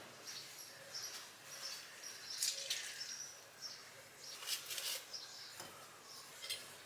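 Soft rustles and clicks of food being handled at a kitchen counter, loudest a couple of times around the middle, with faint high bird chirps in the background.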